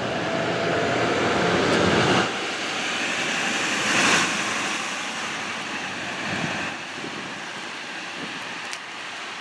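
Parking-lot traffic: a pickup truck driving past close by, loudest about four seconds in, over a steady wash of traffic noise.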